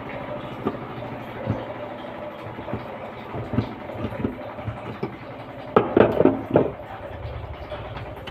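Twin-tub washing machine running with a steady low hum, with irregular knocks and clicks over it and a louder clatter of several knocks about six seconds in.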